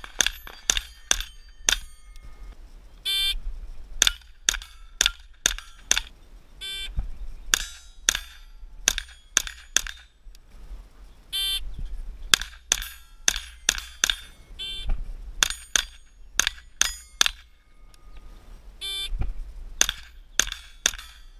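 Tippmann Arms M4-22 semi-automatic .22 LR rifle firing dozens of sharp shots in quick strings, several hits on steel plates answered by a short metallic ring.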